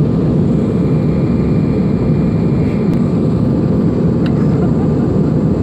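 Steady, deep cabin noise of a jet airliner in flight, engine and airflow noise heard from a window seat over the wing, during the descent for landing.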